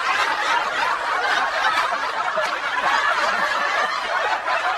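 A group of people laughing together without a break, a dense mix of overlapping chuckles and giggles.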